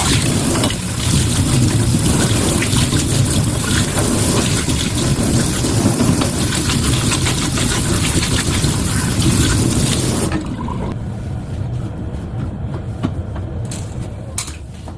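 Running water with a low rumble underneath. About ten seconds in the hissing spray stops, leaving a quieter low rumble.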